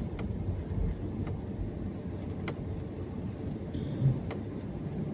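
Inside a car's cabin, the steady low rumble of the engine and tyres as the car moves slowly, with a few faint clicks.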